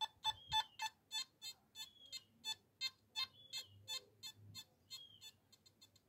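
Nokta Makro Simplex+ metal detector with its SP28 stock coil giving a rapid run of short beeping target tones as a 2 pence coin is passed at about 12 inches, the edge of the coil's detection range. The beeps are strong at first, then weaker and patchier as the signal goes quiet at that depth.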